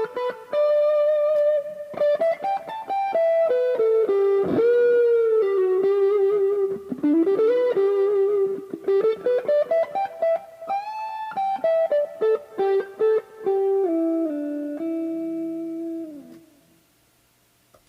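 Late-1970s Fernandes FST-70, a Japanese Stratocaster-style electric guitar, played through an amp in a single-note lead melody with string bends and vibrato. The last notes ring out and fade away near the end.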